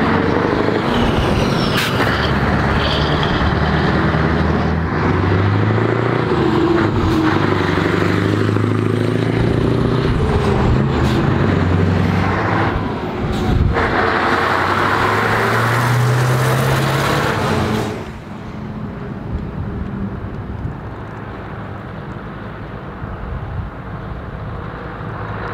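Classic heavy diesel trucks driving past one after another with loud exhausts. The engine pitch rises repeatedly as they accelerate. About two-thirds of the way in the sound drops to a quieter engine note as a truck pulls away from a roundabout.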